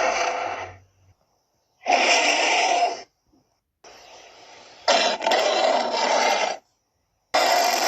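Tyrannosaurus roar sound effects played one after another: harsh roars of one to two seconds each that start and stop abruptly, with short silences between them and a quieter growl leading into the loudest roar just past the middle.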